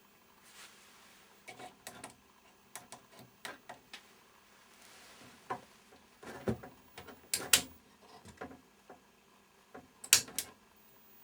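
Scattered light clicks and knocks of hands handling equipment, with a few sharper clicks about seven and a half and ten seconds in.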